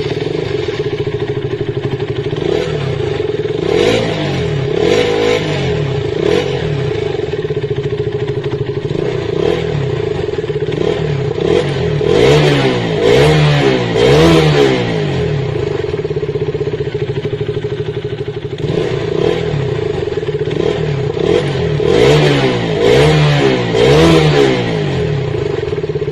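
KTM motorcycle engine idling, with short throttle blips that rev it up and let it fall back: a pair about four seconds in, three in a row near the middle and three more near the end.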